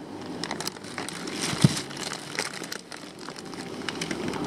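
Plastic fish-shipping bags crinkling and crackling as they are handled and lifted out of the box, with a single dull thump about one and a half seconds in.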